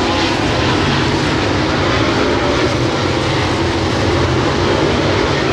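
Dirt late model race cars with V8 engines racing around a dirt oval, a loud, steady blend of engine noise from the field.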